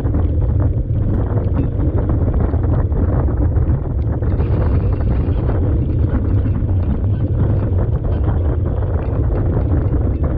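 Wind buffeting the microphone of a camera mounted on a mountain bike being ridden at speed on beach sand: a steady deep rumble, with many small rattles and knocks from the bike running through it.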